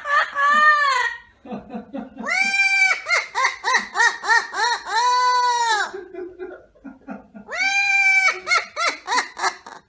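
Amazon parrot singing in three loud, wavering, operatic phrases, each note swelling and falling in pitch, the longest in the middle, with short low rattling sounds between the phrases.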